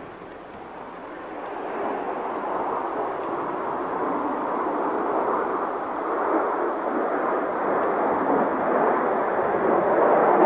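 Distant jet roar of the Blue Angels' F/A-18 Hornets flying in formation, a rushing noise that builds steadily louder. A steady high pulsing chirp, about three pulses a second, sounds throughout.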